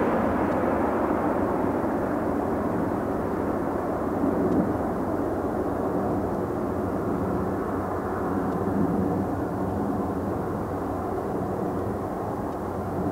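Airbus A330-300's twin Pratt & Whitney PW4168A turbofans at approach power as the jet flies away. The rumble fades slowly as its higher hiss dies away.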